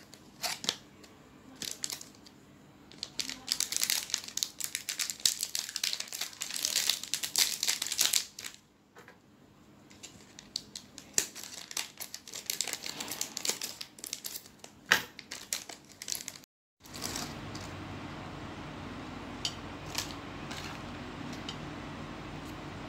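Plastic snack wrapper crinkling and crackling as a packaged muffin is handled and opened by hand, dense for the first several seconds. The sound drops out briefly about two-thirds of the way through, then gives way to a steady low hum with only a few faint crinkles.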